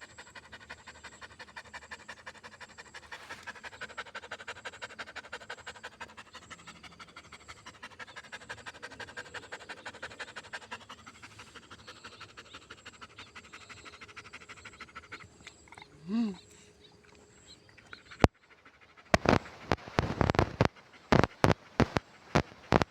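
A dog panting rapidly and evenly. About 16 seconds in there is a short rising-and-falling vocal sound, and near the end a quick run of loud, sharp knocks.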